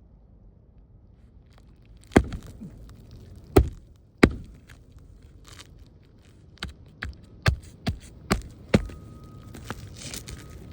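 Sharp knocks and scrapes on an asphalt-shingle roof as a shingle is worked loose: three loud knocks, then a run of lighter ones about every half second.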